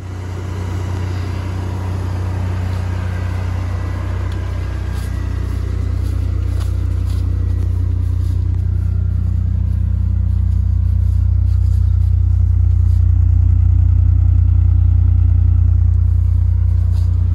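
Toyota Land Cruiser Colorado's 3.4-litre V6 petrol engine running, a steady low rumble that grows gradually louder through the first three-quarters.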